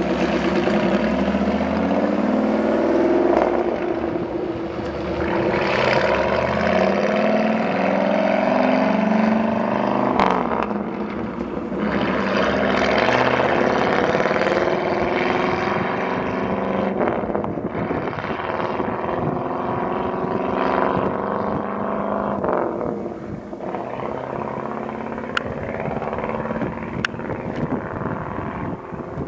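1966 Ford flatbed truck with vertical exhaust stacks driving past and pulling away, its engine note climbing through the gears with breaks at each shift, about three in all. It grows fainter over the last few seconds as the truck moves off.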